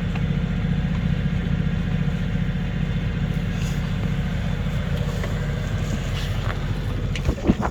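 Sailing yacht's engine running steadily at low revs while motoring in to anchor. The engine sound drops away about seven seconds in, and there is a sharp knock near the end.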